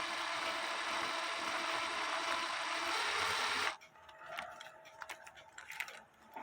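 Cordless drill running steadily for about four seconds, turning a bolt that winds a thicker wire into a coil spring, then stopping abruptly. A few light clicks and taps follow.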